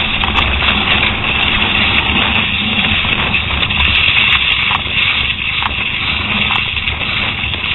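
Downhill mountain bike being ridden fast over dirt and gravel: a steady rushing noise of tyres and strong wind buffeting the helmet camera's microphone, with scattered small clicks and rattles from the bike.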